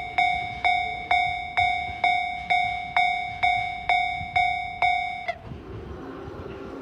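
Japanese railway level-crossing warning bell ringing, an even ding-ding about twice a second, then falling silent a little over five seconds in, leaving a quieter steady background sound.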